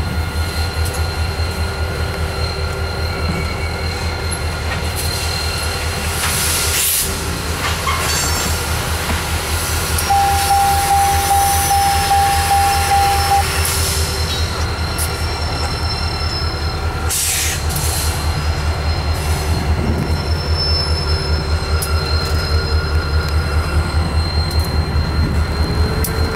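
CSX freight train, led by a GP40 diesel locomotive with a road slug, rolling past with a steady, fast rhythmic rumble of wheels on the rails. A single clear wheel squeal rings out for about three seconds near the middle, and fainter high squeals come and go later.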